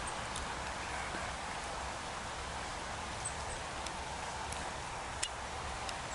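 Shallow stream flowing over a gravel bed: a steady rushing of water with scattered sharp little clicks and plinks, one a little louder about five seconds in.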